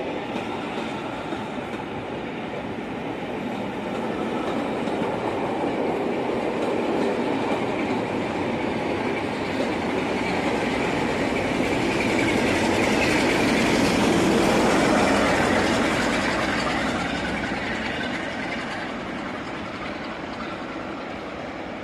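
Passenger coaches of a departing train rolling past at low speed, a steady noise of wheels on the rails. It swells to its loudest about two-thirds of the way through, then fades as the train draws away.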